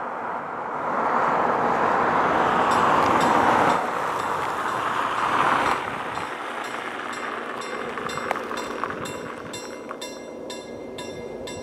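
A car drives past close by, its tyre and engine noise swelling and then dropping away sharply about six seconds in. From about three seconds in, a level-crossing warning bell rings in an even, repeated rhythm, clearer once the car has passed, signalling an approaching train.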